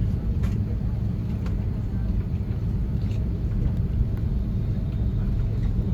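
Steady low rumble inside an Airbus A330-200's cabin as it taxis, with engine and rolling noise, and a couple of faint clicks about half a second and a second and a half in.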